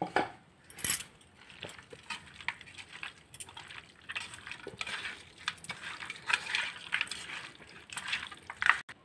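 Raw mutton pieces being mixed by hand with turmeric and mustard oil to marinate them: irregular wet squelching with soft clicks.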